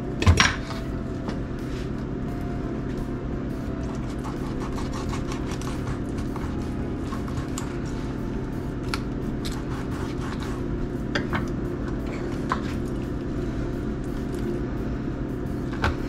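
A fillet knife and fork knock and click now and then on a wooden cutting board while a northern puffer is cut and cleaned by hand, with the sharpest knock just after the start. A steady low hum runs underneath throughout.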